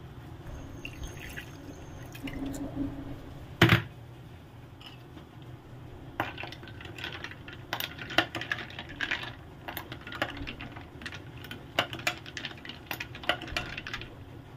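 Coconut milk poured over ice in a ceramic mug, with one sharp clink about four seconds in. Then a metal spoon stirs the ice cubes and black grass jelly in the mug, clinking many times at an irregular pace against the ice and the mug.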